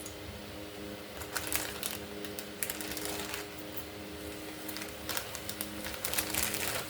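Corn tortillas frying in a hot pan, the oil crackling and sizzling in a few short bursts over a steady hum.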